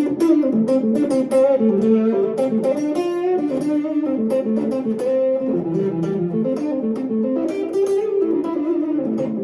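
Electric guitar played through a Joyo Pipe Bomb compressor pedal, picking a quick run of single-note phrases.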